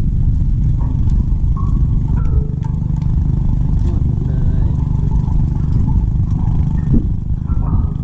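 Steady low engine rumble, running evenly without revving, with faint clatter over it.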